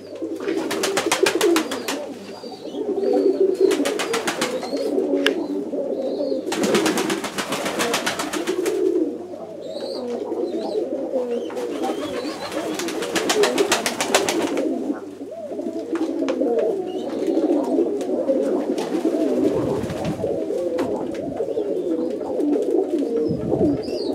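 Many domestic pigeons cooing together without pause inside a small loft. Three spells of rapid wing-flapping come as birds fly up: about a second in, around seven seconds and around twelve to fourteen seconds.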